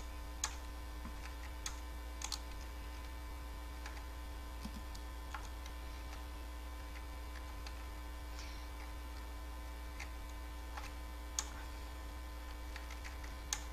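Steady electrical mains hum with a faint higher steady tone. A few isolated sharp clicks are spread through it, from input presses while navigating menus.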